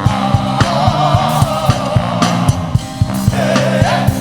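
Live praise band playing up-tempo music: a steady drum beat of about three hits a second over held bass notes, with a wavering melodic line above.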